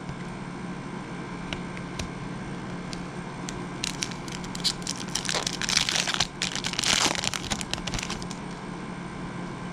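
Foil wrapper of a 2012 Topps football card pack being torn open and crinkled, from about four seconds in until past eight seconds, over a steady low hum.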